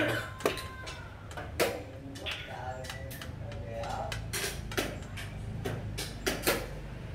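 Sharp clacks and taps of wooden xiangqi pieces and a chess clock's button, about ten in all, the loudest right at the start, over low voices and a steady hum.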